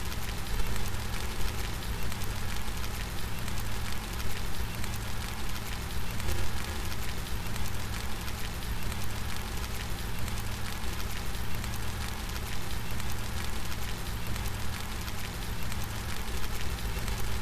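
Steady rain falling: a dense, even hiss with a low rumble underneath.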